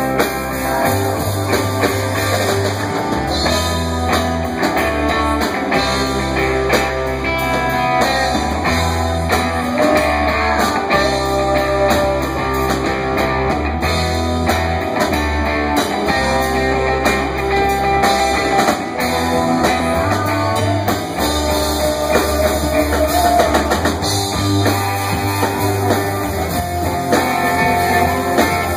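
Live rock band playing on amplified electric guitars and a drum kit, with low notes changing every second or two under the guitars.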